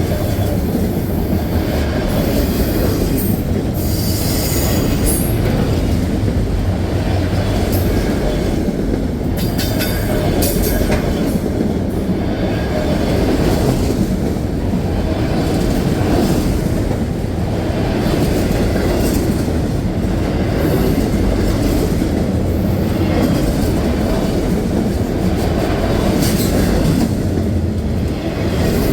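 Train rolling past, a loud steady rumble of wheels on rails, with short high-pitched wheel squeals a few seconds in, around ten seconds in, and near the end.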